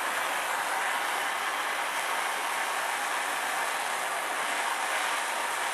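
Handheld gas torch flame burning with a steady hiss while heating a brass cutoff valve and copper pipe joint for soldering.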